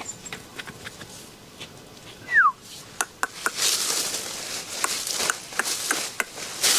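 A Bắc Hà puppy gives one short high whine that falls in pitch while it is picked up and held, followed by handling noise: rustling of fur and clothing with scattered clicks and taps.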